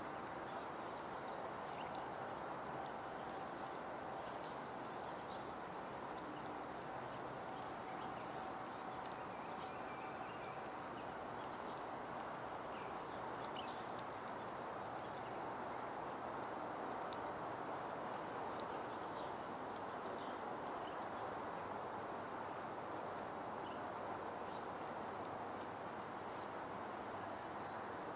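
Chorus of insects trilling in steady high tones, with a second layer pulsing in a regular beat above them, over a soft outdoor hiss.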